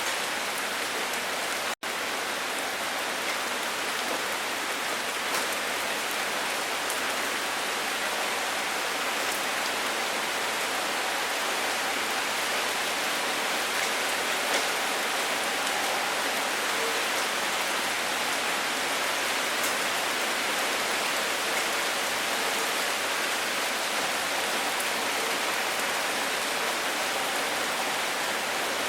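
Steady rain falling, an even hiss with faint scattered drop ticks. It cuts out for an instant about two seconds in, then carries on unchanged.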